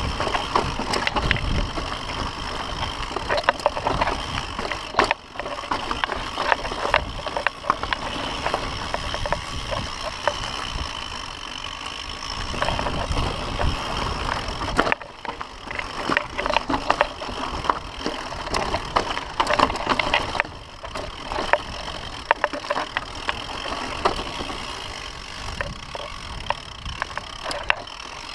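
Mountain bike riding down rocky singletrack: tyres crunching over dirt and stones and the bike rattling and clattering over bumps, with many sharp knocks. Low wind rumble on the microphone is strongest near the start.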